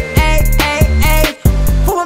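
Trap beat playing without vocals: deep booming 808 bass, fast hi-hats and a synth melody. The beat drops out briefly about two-thirds of the way in.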